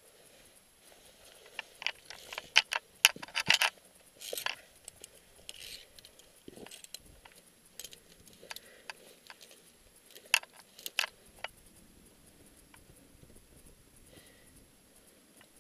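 Via ferrata carabiners clinking and clicking against the steel safety cable and each other, with short scrapes, in a cluster of sharp clinks about two to four seconds in and another about ten to eleven seconds in.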